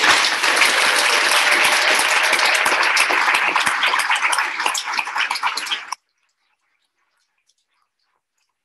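Audience applauding, dense clapping that cuts off suddenly about six seconds in.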